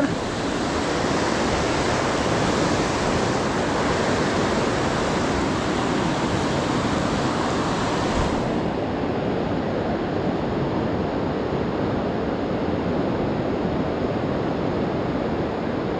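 Fast-flowing mountain river rushing past boulders: a steady, unbroken rush of water that dulls a little in its highest hiss about eight seconds in.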